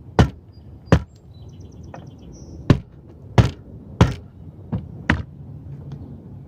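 Hammer tapping, about seven sharp strikes at uneven intervals, as the new gutter outlet is worked into place and its screws set.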